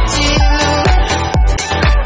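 Background music: an electronic dance-pop track with a steady kick drum about two beats a second under sustained synth chords, without vocals.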